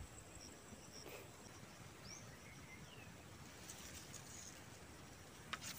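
Near silence: faint outdoor ambience with a steady high insect hum, a couple of brief bird chirps, and a few faint clicks near the end.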